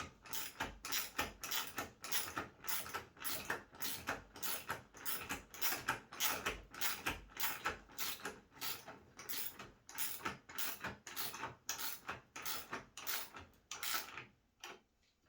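Regular mechanical clicking, about three clicks a second, stopping about a second before the end.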